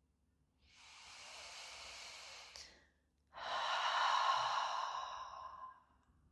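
A woman's deep breath in, then a louder, longer sighing breath out that fades away.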